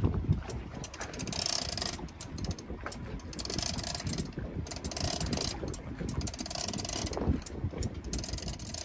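Heavy conventional fishing reel being cranked in short spurts against a big fish on the line, its gears whirring with fine ratchet-like ticking; about five winding spurts.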